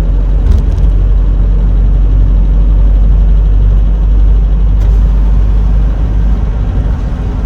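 Mitsubishi Pajero Sport diesel SUV being driven: a steady low rumble of engine and road, with no belt whine standing out.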